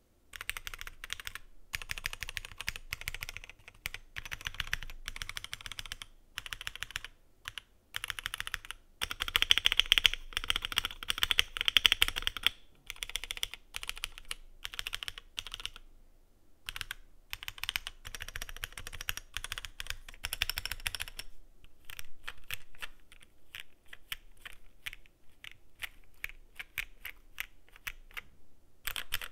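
Typing on an Akko ACR75 V2 mechanical keyboard with stock Akko CS Sakura linear switches: fast runs of key clacks in bursts with short pauses, loudest about ten seconds in. For the last eight seconds or so the presses are sparser and quieter.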